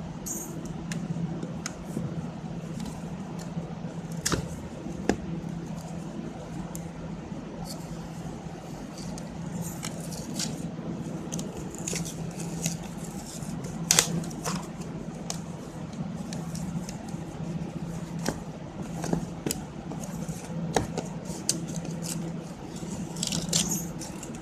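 Hands breaking the seal and opening a smartphone's cardboard box: scattered scrapes, clicks and rustles of card and plastic, with one sharper click about halfway through. A steady low hum runs underneath.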